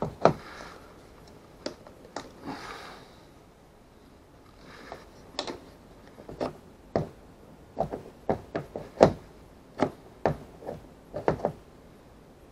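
Irregular sharp clicks and knocks of a plastic fish finder mount being handled and fitted against a plastic kayak hull. They come thickest in the second half, and the loudest is about nine seconds in.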